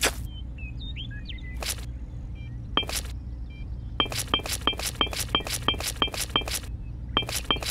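Miniature clay bricks being set down in wet cement, first a few scattered taps, then from about four seconds in a quick even run of small hard clinks, about four a second, pausing briefly near the end. Faint bird chirps sound early on over a steady low hum.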